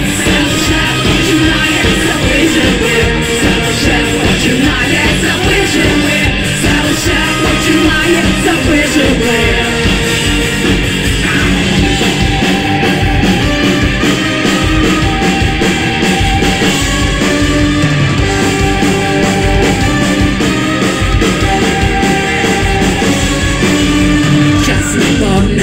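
Live rock band with a brass section playing loudly: male and female voices singing into microphones over trumpet, trombone, tuba and electric guitar, with a steady beat.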